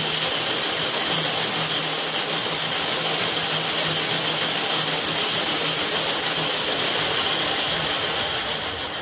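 Toy slinky shaken rapidly from side to side along a tabletop, its coils rattling and scraping on the table in a steady dense clatter as it swings in a third-harmonic standing wave. The rattle fades near the end as the shaking stops.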